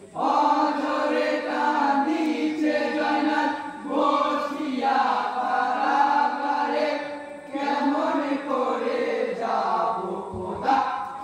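A group of men singing a Bengali marsiya, a Muharram lament, together in a chanted melody. The singing comes in abruptly and runs in long phrases with short breaks between them.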